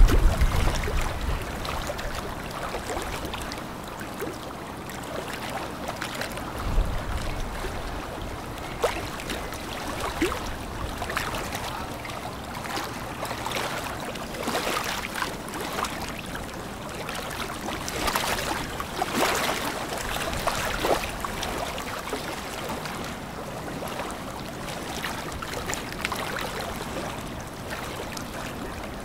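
River water washing and splashing around a passing container ship and tugboat, an uneven wash broken by short splashes and a few low thumps.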